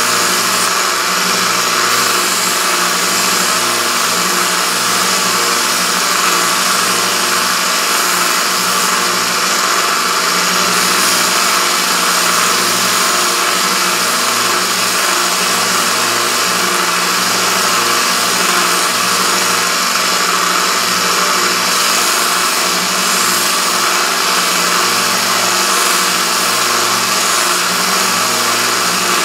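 Narrow bench belt sander running steadily with a constant motor hum, its abrasive belt grinding against the steel bar of a T-handle tap wrench with a continuous hiss.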